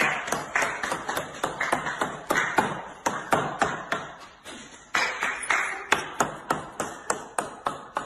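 A caique hopping along a hard stone countertop, its feet landing in quick sharp taps about three to four times a second, each with a brief ring.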